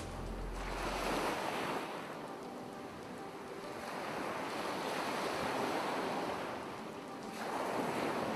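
Ocean surf washing in and out, swelling and receding in slow surges about three times.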